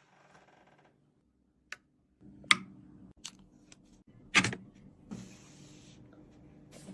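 Computer parts being handled during a PC build: a series of sharp clicks and knocks, the two loudest about two seconds apart, then a short scraping rustle near the end.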